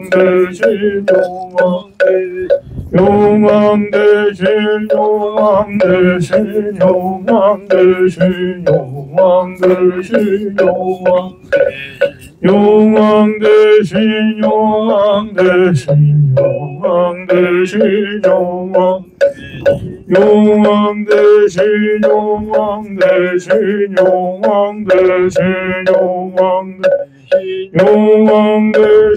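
Buddhist chanting: voices sing a slow melodic chant in repeated phrases of long held notes, with sharp taps throughout.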